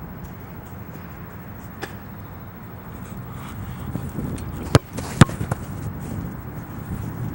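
Two sharp thumps of a soccer ball being struck and handled about half a second apart, the second the loudest, over a steady low rumble.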